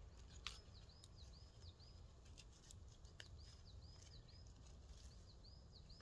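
Faint bird calls in near silence: a bird repeating a phrase of about four short, high, dipping notes every two seconds or so, with a few soft clicks in between.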